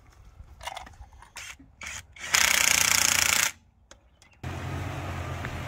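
A loud, harsh scraping noise lasting about a second, then after a brief pause a vehicle engine running steadily with a low hum.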